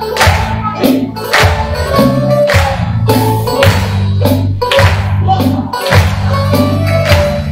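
Greek syrtaki dance music playing loud over a hall's sound system, with a melody over a bass line and a sharp beat about twice a second.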